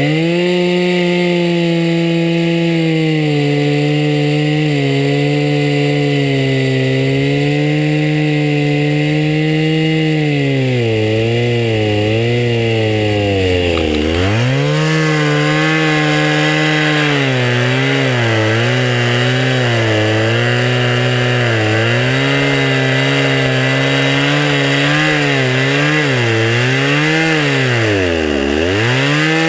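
Chainsaw running at high speed, sawing a slab lengthwise from a blue spruce log in a homemade mill. Its pitch wavers under load and sags sharply about halfway through and again near the end before climbing back.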